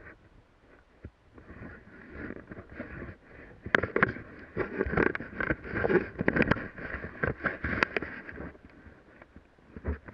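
Handling noise on a head-mounted action camera: a gloved hand rubbing and knocking against the camera and its mount, with jacket rustle, in a cluster of scrapes and sharp knocks from about four seconds in to near the end.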